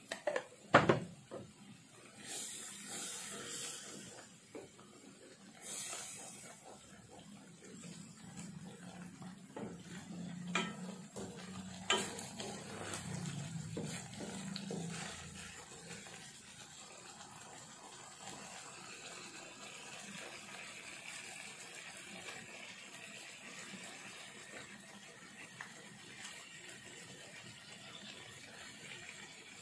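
Rendang spice paste and water sizzling in a pan while a wooden spatula stirs and scrapes it, with a few sharp knocks of the spatula against the pan, the loudest about a second in. From about halfway it settles into a steady, quieter sizzle.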